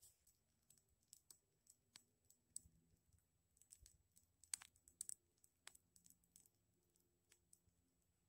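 Faint, irregular crackling of a small fire of birch bark and dry twigs just catching: scattered sharp clicks and pops, a few louder ones about halfway through.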